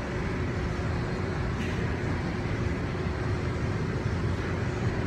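Steady low rumbling gym background noise with a faint steady hum through it.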